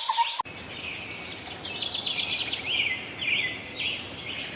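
Birds chirping in short repeated calls over a steady outdoor background hiss, starting about half a second in after a preceding sound cuts off abruptly.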